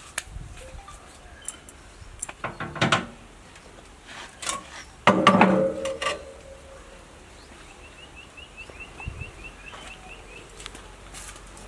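Scattered knocks and clinks during outdoor cooking work. About five seconds in comes a loud, short sound with a clear pitch. Later a small bird gives a quick run of chirps, about four a second.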